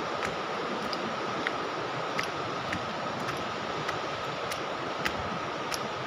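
Footsteps on a forest trail, crunching on dry leaves and stone steps at a steady walking pace of about one every half second, over a steady outdoor hiss.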